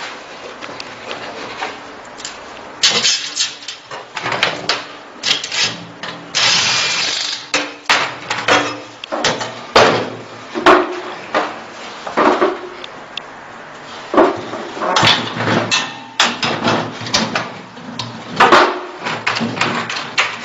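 Irregular knocks and clatter of hard parts being handled and set down, a few strikes ringing briefly.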